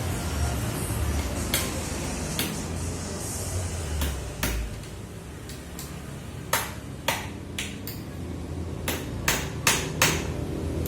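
Hammer striking nails into a wooden packing crate: a few scattered blows, then a quicker run of about eight strikes in the last few seconds.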